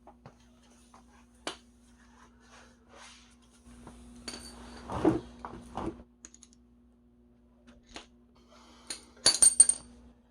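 Metal tools and parts clinking and knocking against each other, with a cluster of loud ringing metallic clinks near the end.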